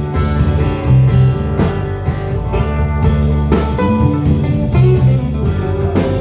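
Band music: a guitar lead over bass and a drum kit keeping a steady beat, in an instrumental break with no singing.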